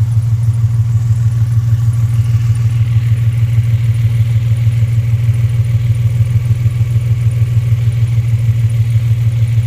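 Infiniti G35's 3.5-litre V6 idling steadily, freshly started after a camshaft sensor replacement; the mechanic suspects it is still misfiring.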